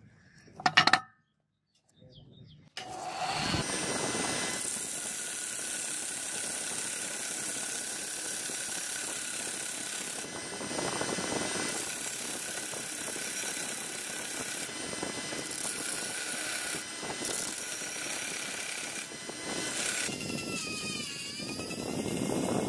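Two metal castings clink together about a second in. From about three seconds in, a belt sander runs with a cast metal piece pressed against its abrasive belt: a steady grinding hiss with a faint whine. Near the end, a handheld rotary tool's sanding drum takes over on the metal, its whine dipping and rising in pitch.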